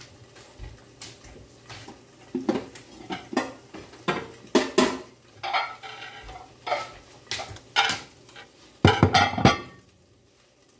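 Kitchen clatter of dishes and utensils: a string of separate clinks and knocks, then a louder clatter about nine seconds in as a pair of ceramic dinner plates is set down on the countertop.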